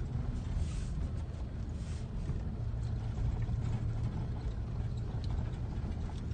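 Steady low rumble of a vehicle running, with a faint engine hum and scattered light rattles and clicks.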